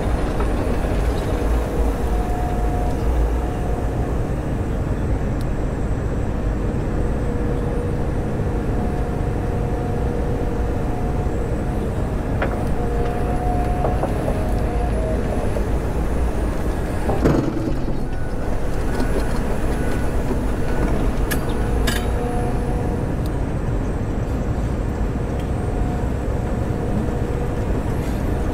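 John Deere 345 excavator's diesel engine and hydraulics running steadily while the bucket digs and trims dirt, heard from inside the cab, with a whine that fades in and out. A single knock comes about two-thirds of the way through.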